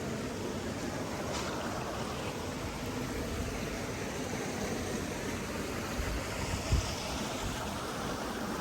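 Steady, even rushing noise of an outdoor nature ambience, like flowing water or wind, with a brief low thump about two-thirds of the way through.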